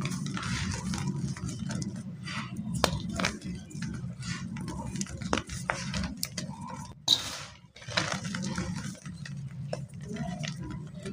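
Block of white gym chalk being crushed by hand: soft, irregular crunching and crumbling with many small sharp crackles, pausing briefly about two-thirds of the way through.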